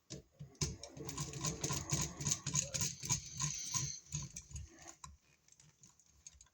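Screwdriver tightening a wire loop under a wall receptacle's terminal screw: a busy run of small metal clicks and scraping for about three seconds, then a few scattered clicks.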